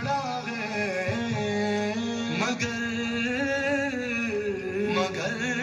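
Background music: a sung Urdu devotional song in praise of Fatima, the voice drawing out long, wavering notes over a steady sustained accompaniment.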